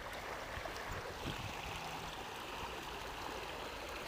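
Shallow creek water running and rippling over rocks, a steady even rush.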